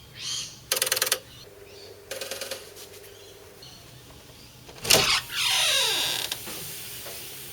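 An Arduino RFID door lock being tested: two short electric buzzes from the lock, then about five seconds in a knock, and a creak that falls in pitch as the door is moved.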